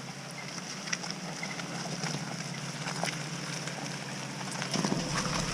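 An off-road SUV's engine running low and steady under the hiss of light rain, with scattered small ticks of raindrops.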